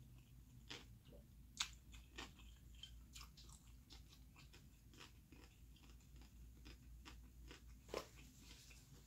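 Faint close-up eating sounds: a person chewing, with scattered wet mouth clicks and smacks, two sharper ones about a second and a half in and near the end.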